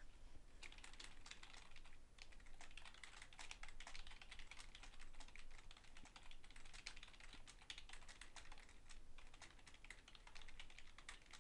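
Faint typing on a computer keyboard: a long run of quick, irregular keystrokes.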